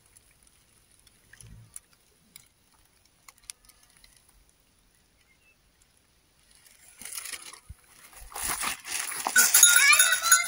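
Mostly quiet with a few faint clicks. About seven seconds in, loud rustling and scraping starts as grass and plant stalks brush against the phone, and an animal calls near the end.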